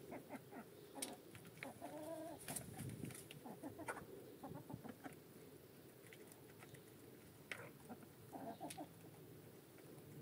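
A few hens clucking quietly while they feed, with scattered sharp ticks of beaks pecking at grain in the feeder's pan.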